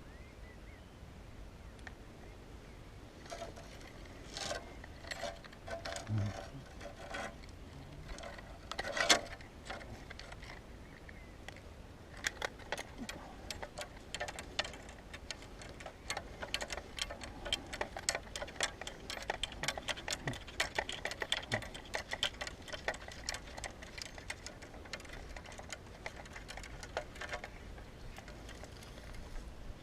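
Fishing reel being cranked: a long run of rapid, even clicking, after scattered clicks and one sharp knock near the start.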